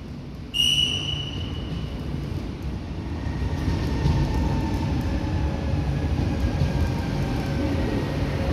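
Renfe Cercanías electric commuter train running into the station: a steady rumble of wheels on rails under a faint electric motor whine that slowly falls in pitch as the train slows. A brief high-pitched beep sounds about half a second in.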